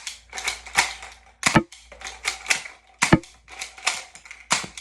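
Homemade toy blaster, converted from a shell-ejecting toy gun, being fired over and over: a run of sharp plastic clacks about two to three a second, three of them heavier, about a second and a half apart.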